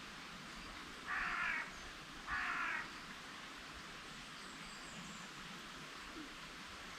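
A crow giving two harsh caws about a second apart, each about half a second long, over a faint steady hiss.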